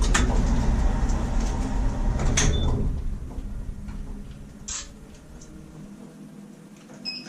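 Lift doors sliding shut, with a sharp knock just after the start and another about two and a half seconds in, over a low rumble that dies away after about four seconds.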